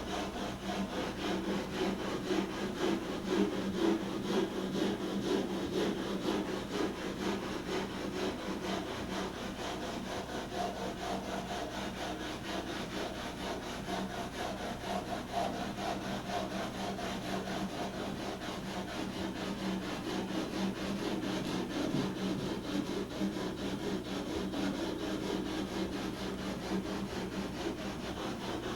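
Continuous rasping of a tool cutting or abrading the damaged airframe of the AR-5 crash repair, in fine rapid strokes over a steady low hum.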